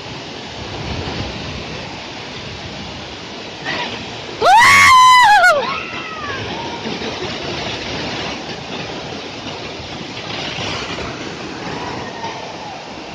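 Steady rushing noise of a waterfall, with one loud high-pitched sound a little under halfway through that rises and then falls in pitch over about a second.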